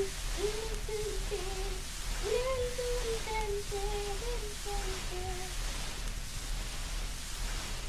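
A voice humming a simple tune in short, gliding phrases, which stops about five and a half seconds in. Under it runs a steady hiss and a low, steady hum.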